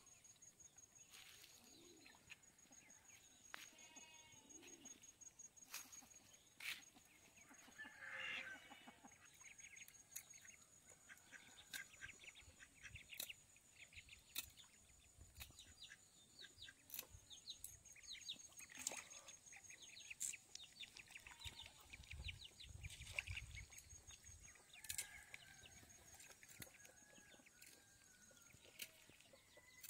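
Faint rural outdoor ambience: scattered bird chirps and short clicks over a steady high whine, with an animal call about eight seconds in.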